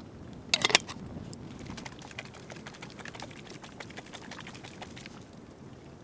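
Wood campfire crackling with scattered small pops, and one short, sharp clink about half a second in, the loudest sound.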